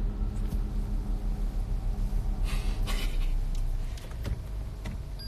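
Car running, heard from inside the cabin: a steady low rumble that eases off about four seconds in, with a few brief rustles about halfway through.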